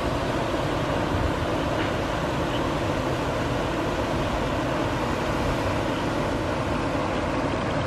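Shallow river rushing over rocks in white-water rapids, a steady, unbroken wash of water noise.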